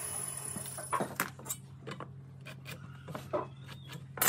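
Scattered light clicks and taps of a steel tape measure and pencil being handled against a timber post on a wooden workbench, with a louder knock near the end. A low steady hum runs underneath.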